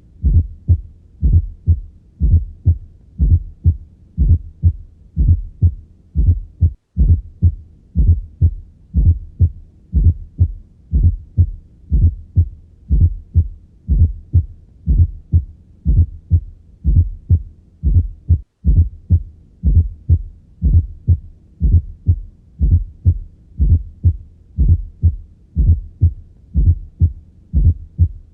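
Heartbeat heard through a stethoscope: a steady run of low thumps, with an extra fourth heart sound (S4) landing just before the first heart sound at the end of diastole, from atrial contraction pushing blood into the ventricle. The sound drops out for an instant twice.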